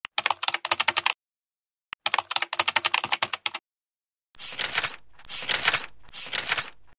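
Typing sound effect: two runs of rapid keyboard clicks, about ten keystrokes a second. Then three short whooshes follow one after another.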